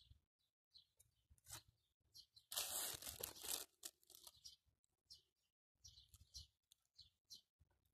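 A brief rustling crunch of handling, lasting about a second, a little over two seconds in. Faint short bird chirps come now and then around it.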